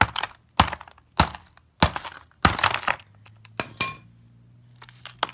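A hammer striking a chunk of coarse-grained, poorly cemented sandstone to break it open: six sharp blows a little over half a second apart, the rock crumbling after one of them. One late blow carries a brief metallic ring, and a few lighter taps follow near the end.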